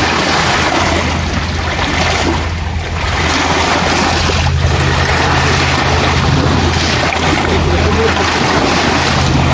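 Steady wind noise on the microphone over small lake waves washing in at the shore.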